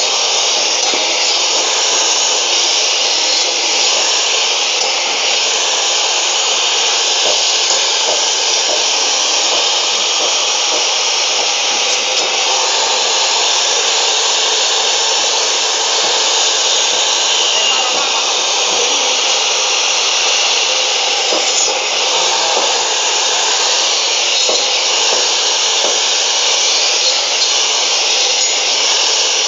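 Maktec cut-off saw motor, fitted with a toothed blade, running steadily at full speed as it cuts through beef bones and meat.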